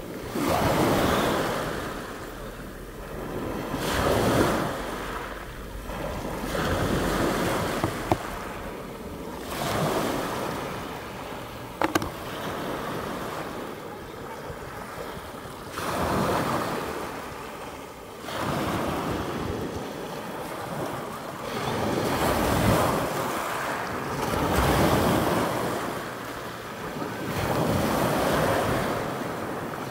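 Sea surf washing in and out in swells every few seconds, with wind buffeting the microphone. Two short sharp clicks stand out partway through.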